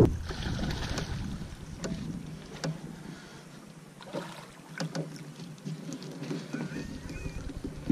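A hooked largemouth bass being landed by hand into a bass boat: scattered short knocks and light water splashing over faint wind, with a cluster of knocks about four to five seconds in as the fish comes aboard.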